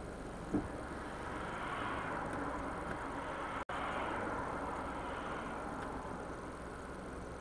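Steady road and engine noise inside a 2009 Daihatsu Move kei car's cabin, picked up by the dashcam microphone while driving. The noise swells and fades in the middle, with a short click about half a second in and a momentary dropout in the audio a little past halfway.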